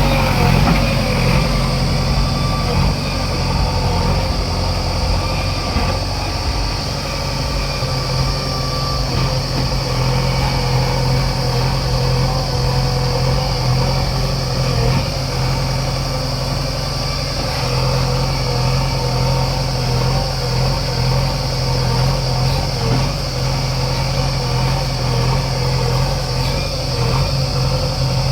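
Diesel engine of a JCB 3DX backhoe loader running steadily, with a constant low drone and no revving.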